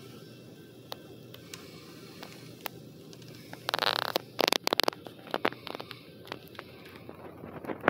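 Steady low rumble inside a car's cabin as a double-stack freight train passes the crossing ahead. About four seconds in comes a loud scrape, then a quick run of clicks and taps that turn into scattered clicks.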